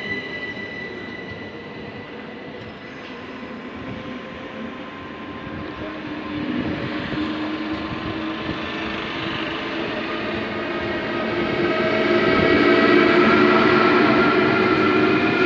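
Electric train coming through the station, its wheel and rail noise and a whine of several steady tones from its electric motors growing louder over the second half.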